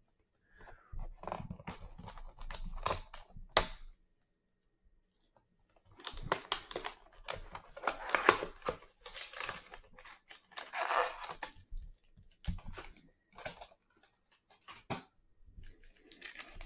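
A cardboard trading-card hanger box being torn open by hand and its contents pulled out: irregular bursts of tearing, crinkling and scraping, then scattered clicks and rustles as the cards come out.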